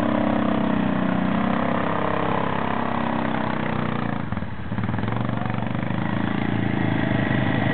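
ATV engine running under load as the quad is pushed and driven up a steep muddy slope, dipping briefly about four seconds in before picking up again.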